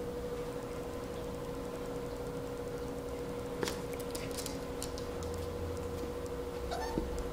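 Two dogs playing on a wooden floor: light clicks of claws on the boards around the middle and a short rising squeak near the end, over a steady hum.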